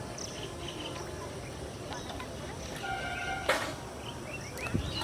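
Outdoor rural ambience of birds chirping and insects, with a short pitched call about three seconds in, followed at once by a sharp click.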